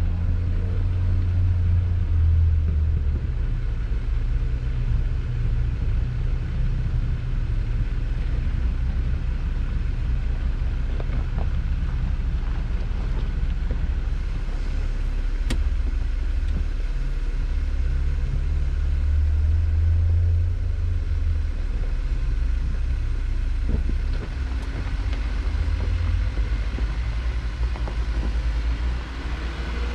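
Vehicle engine running while driving a rough trail: a steady low rumble whose pitch shifts now and then with the throttle.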